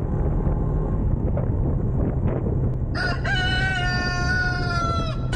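A rooster crows once, a single held call of about two seconds starting a little past halfway, its pitch dropping slightly at the end, over a steady low rumble.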